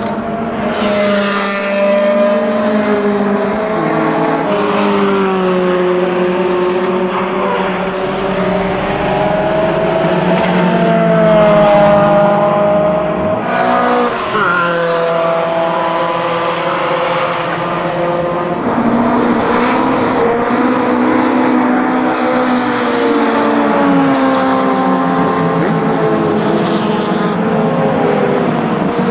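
Racing car engines running at speed, their pitch rising and falling as the cars accelerate, lift off and pass. The engine notes change abruptly a few times.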